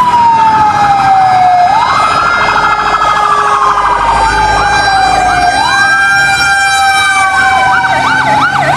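Electronic fire-engine siren sound wailing, with slow rising-and-falling sweeps. A faster yelping siren joins in from about six seconds in.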